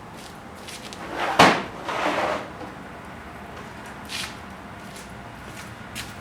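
A tool drawer sliding and knocking shut about a second and a half in, followed by a second shorter scraping rush and a few light clicks, as a 32mm socket is fetched.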